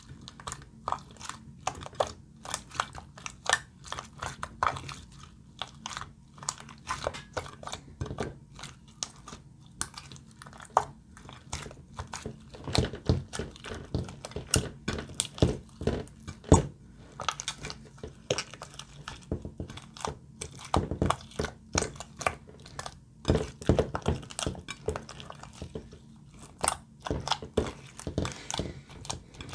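Glossy slime being squished, stretched and folded by hand, giving dense, irregular sticky clicks and pops.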